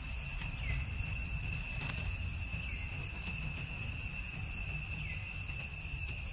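Steady high-pitched insect drone, with a low rumble underneath and two short falling chirps.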